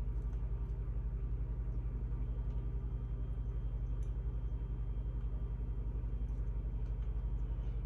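A small electric motor running with a steady low hum, pulsing quickly and evenly several times a second.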